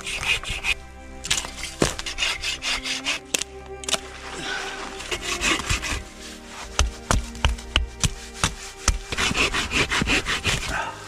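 Scraping and rubbing sounds with many sharp clicks and knocks, over background music.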